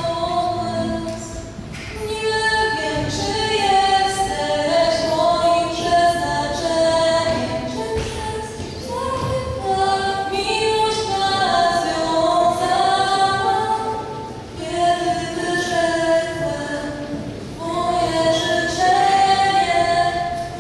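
A young woman singing a song into a microphone, holding and gliding between long notes, to an acoustic guitar accompaniment.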